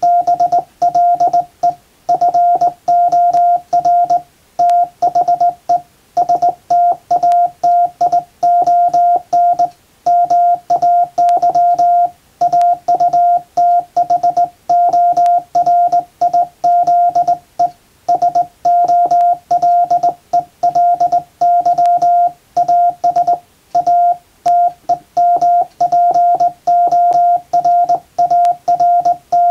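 Hand-keyed Morse code from a JRC KY-3A straight key: a steady mid-pitched beep switched rapidly on and off in dots and dashes, with short pauses between words, spelling out English-language telegram text. Faint clicks of the key's lever run along with the beeps.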